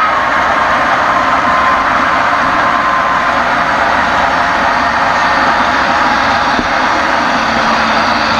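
Model train tank cars rolling past close by: a steady rushing rumble of metal wheels on the rails.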